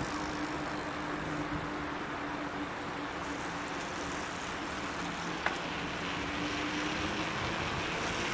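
Steady rushing noise of riding a bicycle on the road, wind and tyres rolling, with a faint steady hum and a single click about five and a half seconds in.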